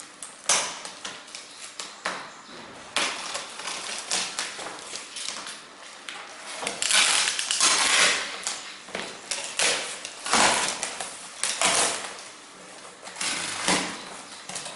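Packing tape on a cardboard box being slit with a box cutter and the box torn open: repeated scraping, tearing and rustling of tape and cardboard in uneven bursts, loudest about seven to eight seconds in.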